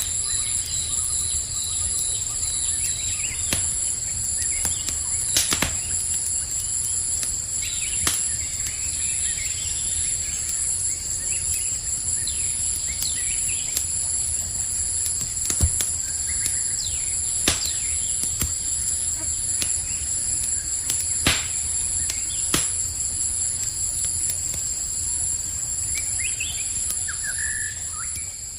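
Campfire crackling, with sharp pops every few seconds and a low steady rumble, over a steady high chorus of night insects and a few brief bird chirps. The sound fades out at the very end.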